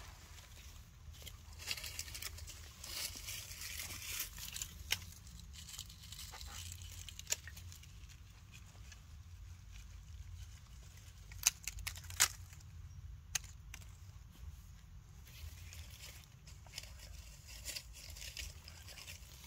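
Quiet outdoor ambience: a steady low rumble with soft rustling and scattered small clicks, the loudest two close together a little past the middle.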